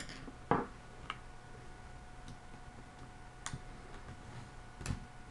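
A few irregular, sharp clicks and taps from handling the netbook's screen assembly and the small screws and screwdriver, the loudest about half a second in and another near the end.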